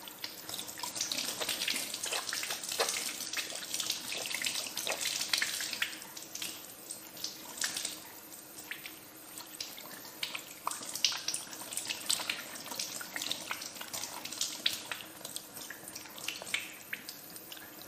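Tap water running in a thin stream and splashing over hands as they rub and wash under it: a steady rush broken by many small irregular splashes.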